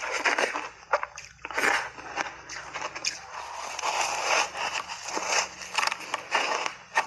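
Close-up crunching and chewing of a frozen block of ice coated in milk powder: a quick run of crunches broken by short pauses, with a fresh bite into the block about four seconds in.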